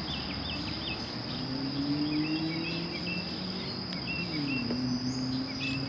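Steady high-pitched trill of insects, with a few short bird chirps over it and a low hum that slowly rises and falls.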